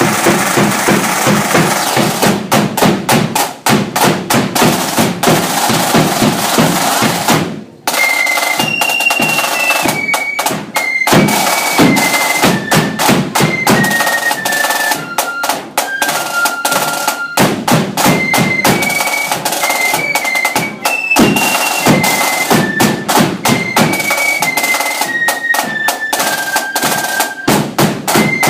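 Marching flute band playing: snare and bass drums beat alone at first, then after a short break about eight seconds in, the flutes come in with a shrill, high melody over the drums.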